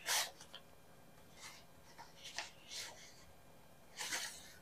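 Pencil drawing on a sheet of paper: a few short, scratchy strokes, with the sheet rustling as it is lifted near the end.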